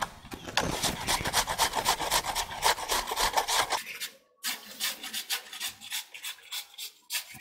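Raw giant taro (mankochu) corm being grated on a flat metal hand grater: rapid rhythmic rasping strokes, with a short break a little under four seconds in before the strokes resume at about four a second.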